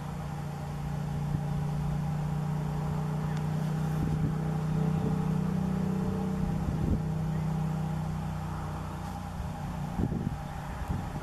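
Steady drone of a distant engine passing by. It grows louder over several seconds and then fades.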